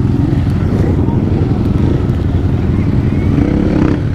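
Yamaha WR450 supermoto's single-cylinder four-stroke engine running steadily as the bike is ridden, its pitch rising a little about three seconds in.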